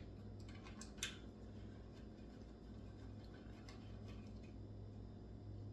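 Faint metallic clicks and ticks as small terminal hardware and a wrench are handled, over a low steady hum.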